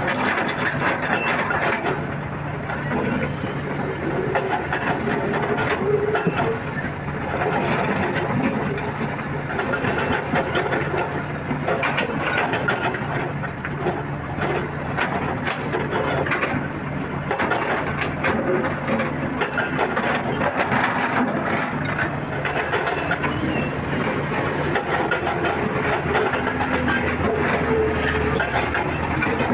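Excavator engine running steadily, with many irregular crunches and knocks of soil and rock being dug and loaded.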